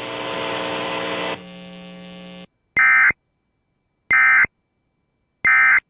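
A steady electrical hum with hiss, dropping in level about a second and a half in and cutting off. Then three short, loud warbling data bursts of the Emergency Alert System, evenly spaced: the end-of-message code that closes the warning broadcast.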